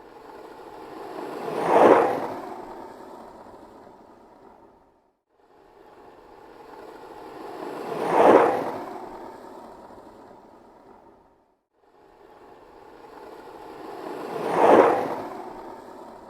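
Skateboard rolling past three times, its wheels rolling closer to a loud peak and then fading away, one pass about every six and a half seconds.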